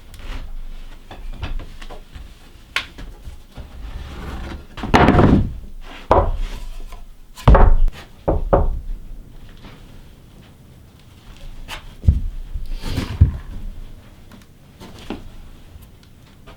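Wooden boards being handled and knocked together: irregular wooden knocks and thuds, loudest about five, seven and a half and thirteen seconds in.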